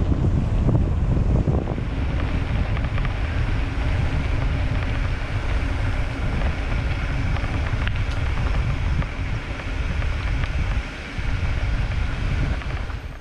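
Wind buffeting a helmet- or bike-mounted action camera's microphone, mixed with a steady low rumble of mountain bike tyres rolling over the trail on a downhill run.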